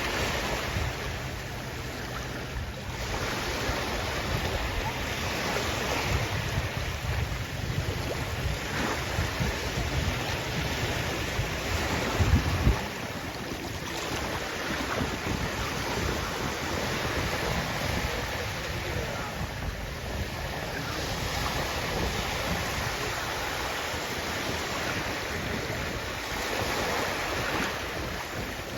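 Sea waves breaking and washing in a steady wash that swells and eases, with wind rumbling on the microphone. A brief louder low thump about twelve seconds in.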